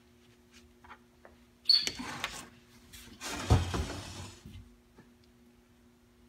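Metal transmission parts being handled during a 4L80E teardown: a sharp metallic clack with a brief ring about 1.7 seconds in, then a longer clatter with a low thud about three and a half seconds in, over a faint steady hum.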